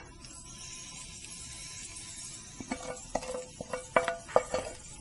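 Vegetables sizzling with a steady hiss as they land on a very hot sizzler plate, then a quick run of about seven knocks with a short metallic ring as a wooden spatula scrapes and taps them out of the metal pan.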